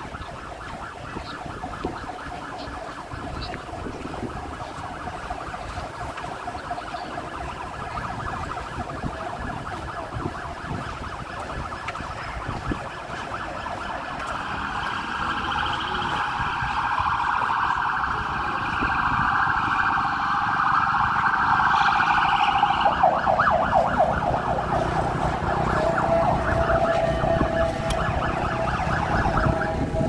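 Ambulance siren wailing and growing steadily louder as it approaches. About two-thirds of the way through it switches to a faster, choppier yelp.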